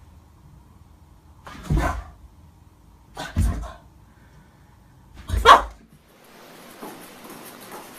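Boston terrier barking at its own reflection in a mirror: three short, sharp barks about two seconds apart, the last the loudest.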